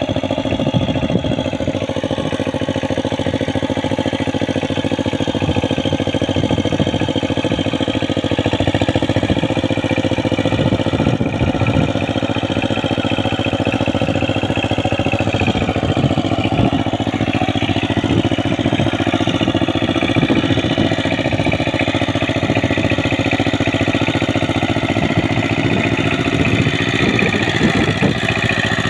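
Single-cylinder diesel engine of a two-wheel walking tractor (power tiller) running steadily as it drives its cage wheels through a flooded, muddy paddy.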